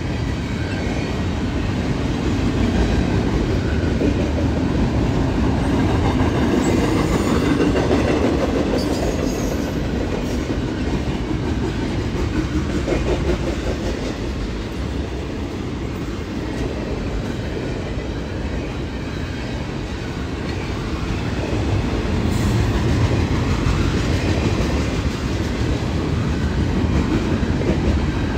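Double-stack intermodal freight train's well cars rolling steadily past, steel wheels running on the rails.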